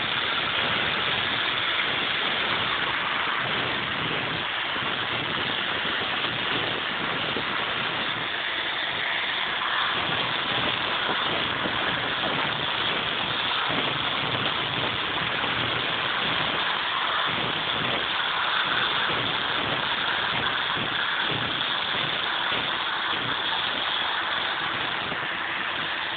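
Angle grinder running steadily, cutting out the mortar joints in brickwork for repointing.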